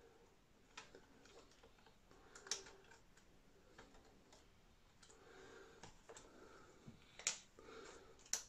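Faint scattered clicks and taps of hard plastic as a Radiomaster TX16s transmitter's case is handled and its back worked loose, with sharper clicks about two and a half seconds in, about seven seconds in and near the end.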